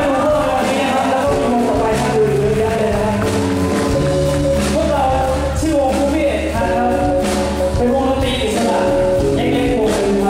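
Live band music: a male lead singer singing over acoustic guitar, electric guitar and a drum kit keeping a steady beat.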